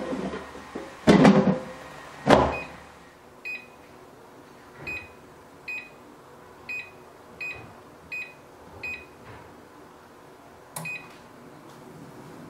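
Tefal air fryer basket pushed home with two or three loud clunks in the first couple of seconds, then the air fryer's touch panel beeping, seven short beeps and one more near the end, as the fish-grilling mode and temperature are set.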